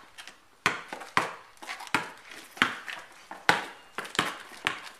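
A basketball being dribbled on a hard court: a string of sharp bounces, about eight, at an uneven pace of roughly one every half second to a second.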